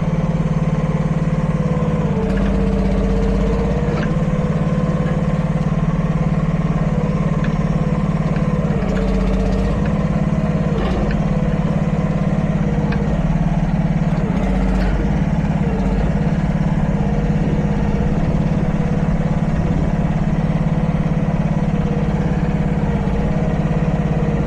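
Chinese-made mini excavator running steadily at working speed while it is operated, with a whine that dips and rises in pitch again and again as the machine is worked, and a few light knocks.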